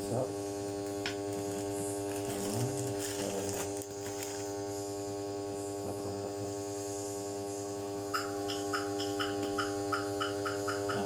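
A steady electrical hum with a buzzing edge. About eight seconds in, a plucked, guitar-like melody of short notes comes in over it.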